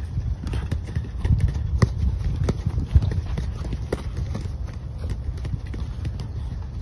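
Soccer balls being kicked and passed: irregular sharp thuds of boots striking the balls, the sharpest about three seconds in, over a low rumble.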